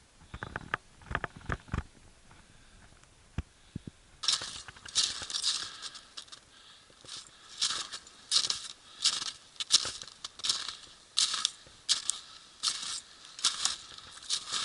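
Footsteps crunching through snow at a steady walking pace, starting about four seconds in, with a few soft knocks before that.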